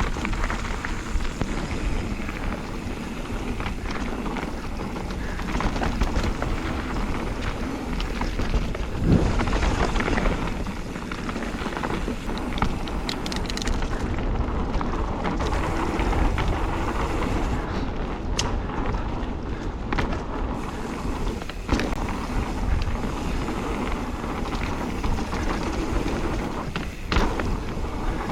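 Mountain bike's knobbly tubeless tyres (Schwalbe Magic Mary front, Hans Dampf rear) rolling over a dirt forest trail: a steady rolling rumble with a low thrum from the ground, and a few sharp knocks as the bike hits bumps.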